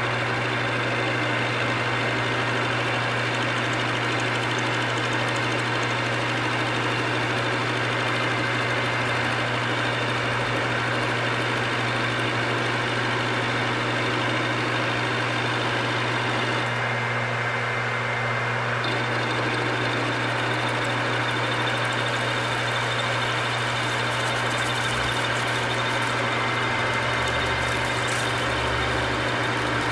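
Metal lathe running steadily, its spindle turning a workpiece held off-centre in a four-jaw chuck while the cutting tool takes a turning cut and throws off chips, over a constant motor hum.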